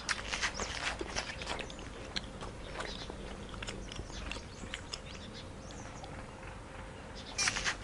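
An animal chewing, a run of irregular crunching clicks with a louder cluster near the end, over a faint steady hum.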